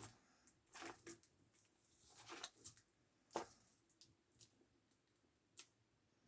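Black spiny-tailed iguana (Ctenosaura similis) eating banana: quiet, irregular wet clicks and smacks of its jaws, about half a dozen, the loudest a little over three seconds in.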